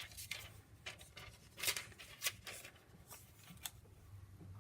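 Thin origami paper rustling and crinkling as sheets are handled, in a handful of short, scattered rustles.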